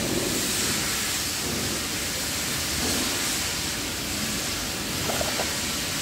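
Steady, even hiss of outdoor background noise, with no distinct separate sounds standing out.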